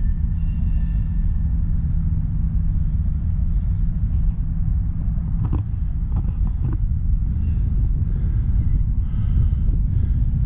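Wind buffeting the microphone, a loud, unsteady low rumble throughout, with a few light knocks a little past halfway.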